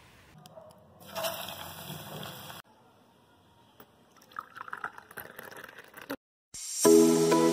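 Rain falling in a short noisy rush, then tea poured from a spout into a ceramic cup. Music begins near the end.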